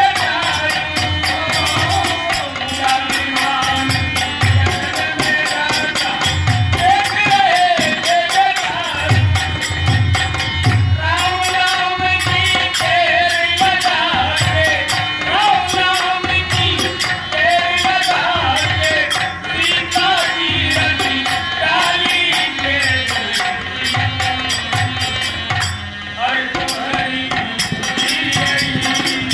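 Bhojpuri folk music: a wavering melodic lead over repeated hand-drum beats and shaken, rattling percussion.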